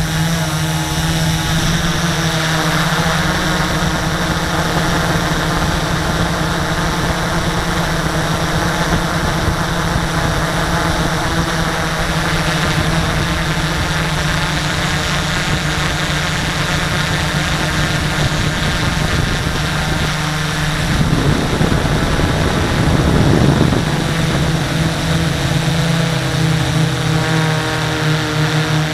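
XAircraft X650 quadcopter's electric motors and propellers running with a steady, multi-tone hum, heard from the camera mounted on the craft. About three quarters of the way through the pitch wavers and it briefly gets louder, then settles back to a steady hum.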